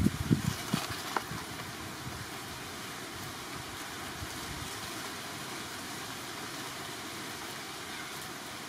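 Steady outdoor background noise, with a brief flurry of low thumps and clicks in the first second.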